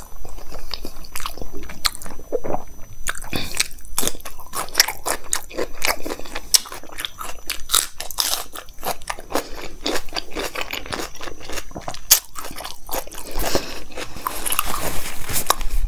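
Close-miked chewing and mouth sounds of a person eating a handful of dal, rice and paneer, with many short crisp clicks of wet food and lips.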